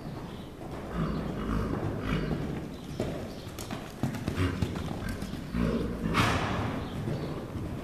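Horse cantering on sand, its hooves giving irregular dull thuds, with a short loud hissing burst about six seconds in.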